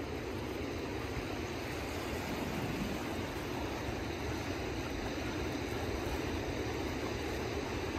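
Steady rushing noise of shallow river water flowing and swirling around a hiker's legs as she wades across a river mouth.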